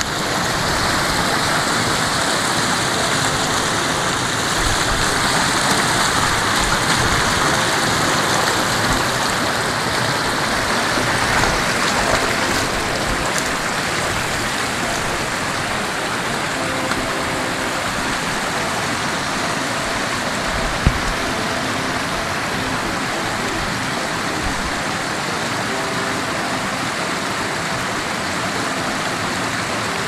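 Snowmelt mountain stream rushing steadily over rocks and small cascades close by. One short knock about two-thirds of the way through.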